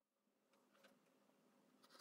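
Near silence, with a couple of faint light scrapes or taps from a steel ruler and craft knife being set in place on a plastic cutting board.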